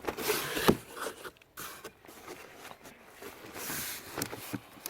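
Rustling and scraping of packaging as the parts of a boxed outboard motor are handled, with a few light knocks.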